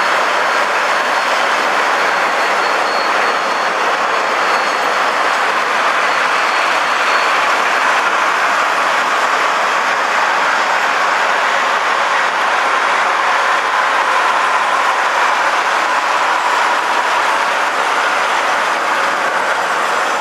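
Freight train of covered hopper wagons rolling past, a steady loud noise of wheels on rail, with a faint thin high whine through the first several seconds.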